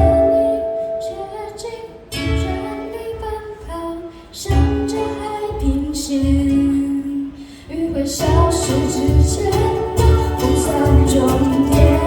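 Live band music: strummed ukuleles over a steady drum beat, with a female lead voice singing. The music briefly drops back about two seconds in, again near the middle, and once more just before eight seconds, then returns fuller with singing.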